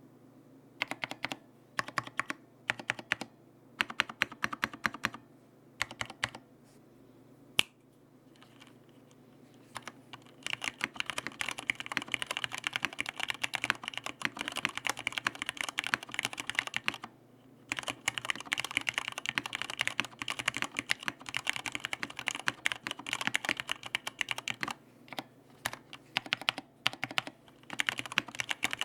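Typing on an mStone Groove F SF full-size mechanical keyboard with stock, unlubricated Cherry MX Red linear switches and PBT Cherry-profile keycaps. Short runs of keystrokes at first, then fast continuous typing from about ten seconds in, with a couple of brief pauses.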